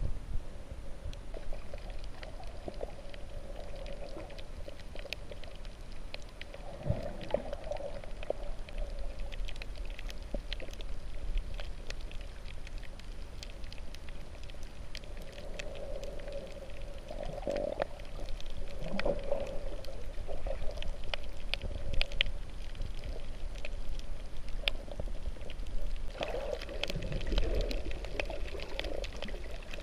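Underwater sound picked up by a submerged camera: a muffled water rumble that swells several times, with many faint scattered crackling clicks.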